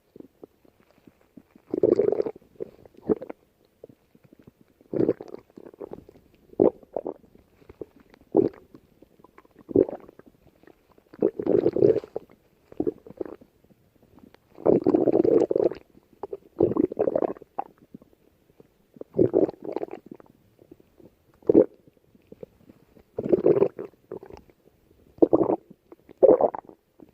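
A hungry person's stomach growling in irregular bursts, some brief and some over a second long, with short quiet gaps between them.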